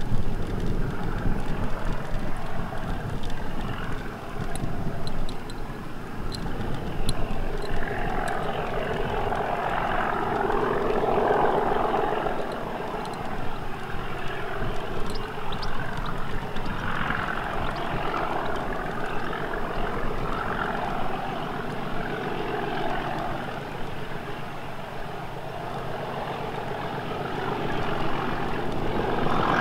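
Class 37 diesel-electric locomotive 37610's English Electric V12 diesel engine working under power as it hauls a train of coaches, a steady drone that grows louder near the end as it approaches. Wind buffets the microphone early on.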